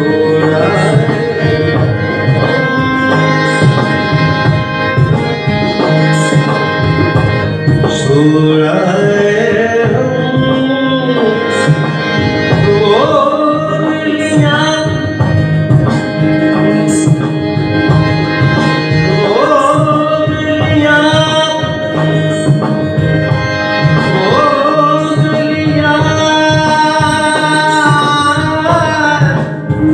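Harmonium playing with tabla keeping a steady rhythm, and a man singing long held notes that slide up and down, in an Indian vocal style. The singing comes in about eight seconds in and continues in long phrases.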